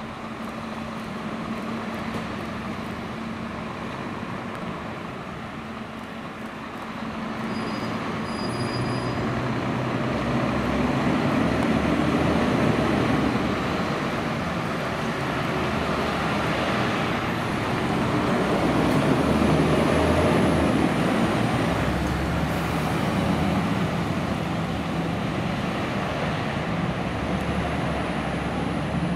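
Diesel engines of heavy Scania fire engines, a turntable ladder truck and a rescue pumper, pulling out and accelerating past with a low rumble. The rumble swells twice, loudest about a third of the way in and again about two-thirds in.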